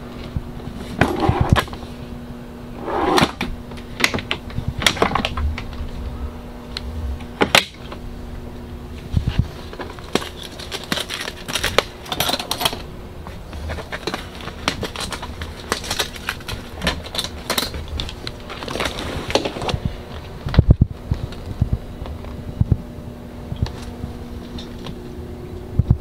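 Hands handling a truck cab's hard plastic dashboard and fabric seats: irregular clicks, taps and rustles, the sharpest near the start and again about three-quarters of the way in, over a steady low hum.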